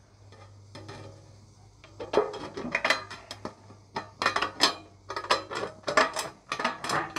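Tin snips cutting through thin sheet metal: a run of sharp metallic snips and crunches, about three a second, starting about two seconds in.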